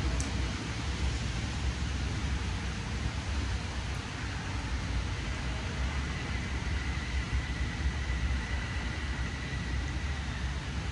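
Steady hiss of winter rain over a low, wavering rumble, with a faint thin high tone in the middle of the stretch.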